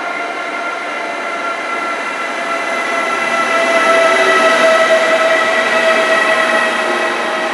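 Siemens Vectron electric locomotive hauling a passenger train into the station and passing close by, a steady multi-tone whine over a rushing noise that swells to its loudest as the locomotive goes past, about halfway through.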